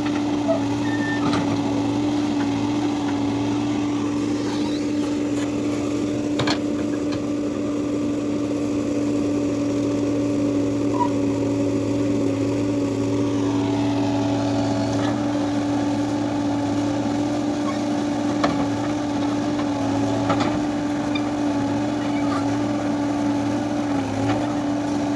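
Diesel engine of a tractor or backhoe loader running steadily at one speed, with a few faint clicks and knocks over it.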